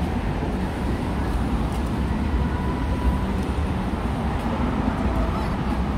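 Steady city road traffic: cars passing through a busy intersection, a continuous low rumble.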